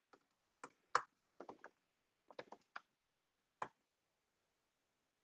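Computer keyboard keystrokes: about ten faint, irregular key clicks, a word being backspaced and retyped, ending with the Command-S save shortcut.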